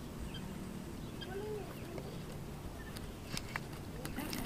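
Low outdoor rumble beside a pond, with a faint bird call about a second and a half in and a few light clicks from the baitcasting reel being handled near the end.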